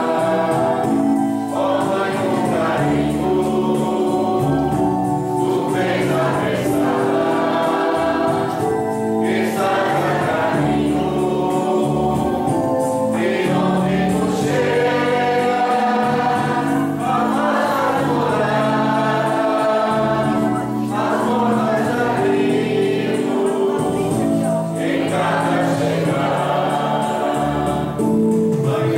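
Congregation singing a processional hymn together, in phrases of held notes with short breaks between lines.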